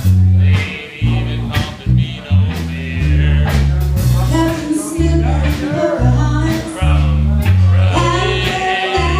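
Live rock band playing amplified: electric guitar, heavy low bass notes and drums with cymbal hits, and a woman singing into a microphone, her voice coming in about halfway through.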